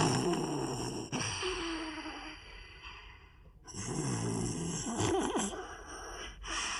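Cartoon dog snoring in its sleep: several drawn-out snores with sighing breaths, sped up and raised in pitch.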